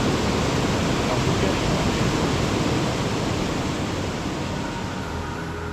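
Steady rushing noise, easing slightly near the end.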